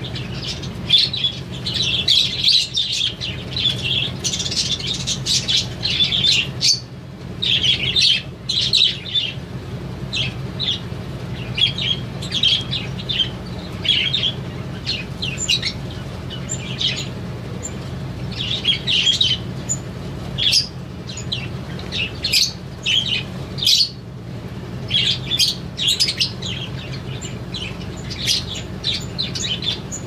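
A flock of budgerigars and other small aviary birds chirping and chattering in quick, overlapping calls, with only brief lulls, over a steady low hum.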